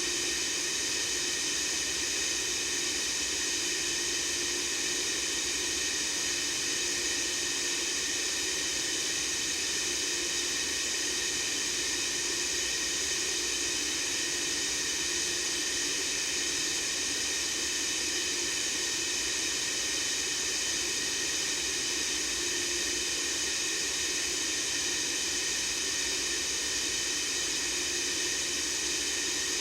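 Steady white-noise hiss, even and unbroken, strongest in the high range, with a faint low hum that comes and goes every few seconds.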